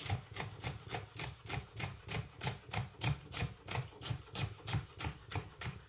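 Knife chopping green pepper on a cutting board in quick, even strokes, about five a second.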